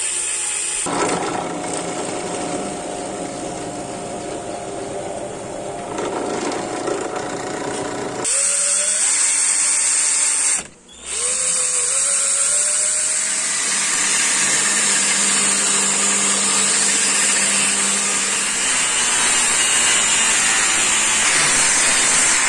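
Electric drills running, boring into a clamped hardwood knife handle. About eleven seconds in the motor stops briefly, then spins up again with a rising whine.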